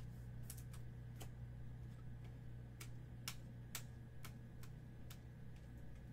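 Faint, irregular clicks of glossy Topps Chrome baseball cards being flipped through by hand, each card slid off the front of the stack against the next, roughly two clicks a second over a low steady hum.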